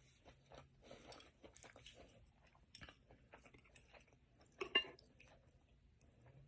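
Close-miked chewing and wet mouth sounds of a person eating, with many small smacks and clicks and one louder mouth sound about two-thirds of the way through.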